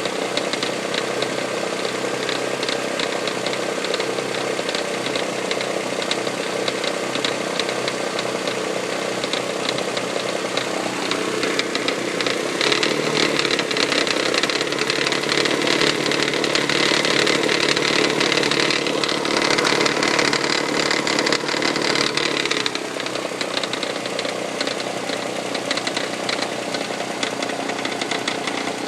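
1999 Toyota Sienna's 1MZ-FE 3.0-litre V6 running with a fast, steady tapping knock. The owner says it sounds like something hitting the valve cover. From about twelve seconds in the engine runs louder and faster for some ten seconds, then drops back suddenly.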